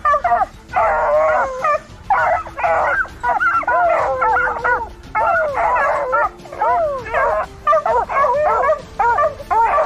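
American foxhounds baying: a near-continuous run of short, overlapping howls that rise and fall in pitch, with only brief gaps between them.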